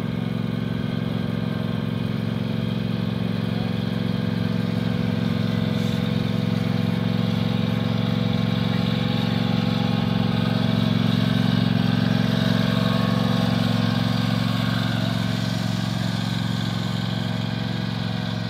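Riding lawn tractor's engine running steadily as the tractor drives slowly along. The hum grows louder toward the middle as the tractor comes near, then eases off.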